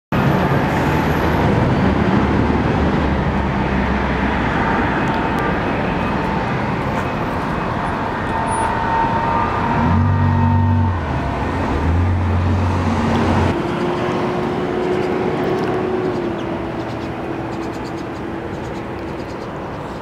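Street traffic noise: a steady rush of passing vehicles, with a motor's low hum standing out about ten to thirteen seconds in.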